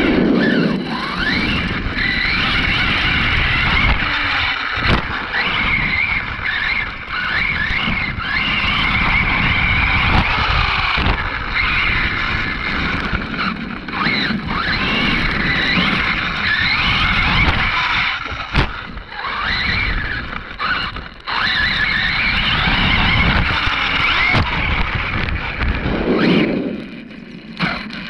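Arrma Kraton 6S RC monster truck running, heard from on board: its brushless motor and geared drivetrain whine, rising and falling in pitch with the throttle, over tyre noise on pavement and dirt. It quiets near the end as the truck comes to a stop.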